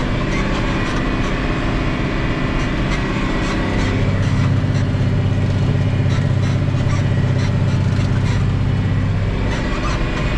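Tractor engine running steadily under load. Its low hum grows stronger from about four seconds in and eases back near the end.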